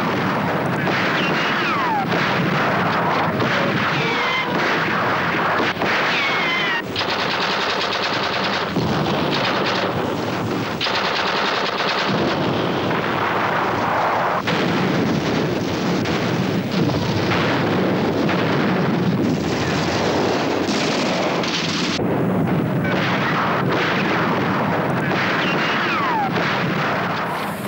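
Film-soundtrack battle noise: dense, continuous gunfire and explosions, with a few falling whistles cutting through.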